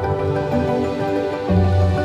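Soft instrumental background music with held notes and a bass note coming in about one and a half seconds in.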